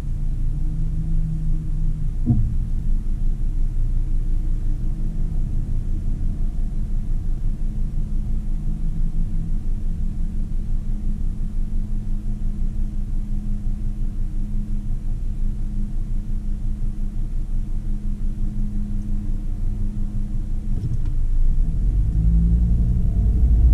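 Car engine idling at a standstill, a steady low rumble heard from inside the cabin. Near the end the engine note rises and grows louder as the car pulls away.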